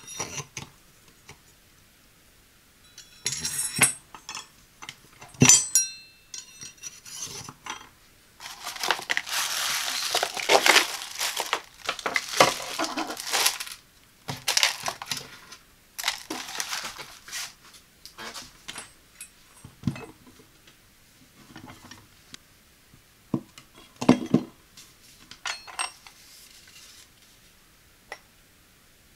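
Stainless-steel knives of a McCook kitchen knife set clinking against each other and their block in sharp, ringing clicks. For several seconds in the middle, plastic wrapping crinkles. Scattered light knocks and clicks follow as the pieces are handled and set down.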